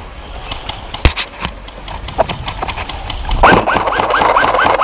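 Airsoft electric rifle firing: a few sharp single cracks about a second in, then a loud full-auto burst at about seven shots a second over the last second and a half.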